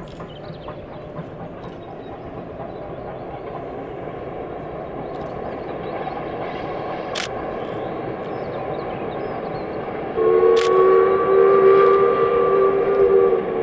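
LMS Stanier Black Five 4-6-0 steam locomotive approaching, its running noise growing steadily louder. About ten seconds in it sounds a long whistle blast of two notes together, lasting about three seconds. A few sharp clicks are heard over it.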